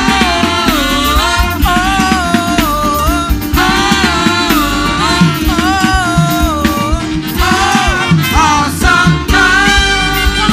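Live gospel worship music: a sung melody with held, wavering notes over a band with bass and drums.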